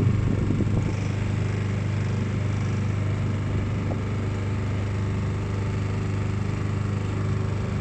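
Small motor boat's engine running steadily under way, an even low hum.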